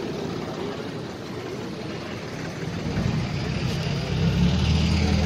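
A tractor engine running, a low steady drone that grows louder about three seconds in.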